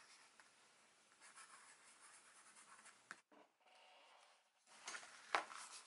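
Pen writing on the paper of a spiral notebook: a faint, light scratching, with a click about three seconds in and a louder scrape and tap near the end.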